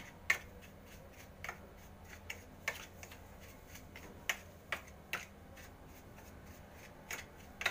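Metal spoon clinking and scraping against a bowl while stirring dry spice powders, giving about ten irregular light clicks.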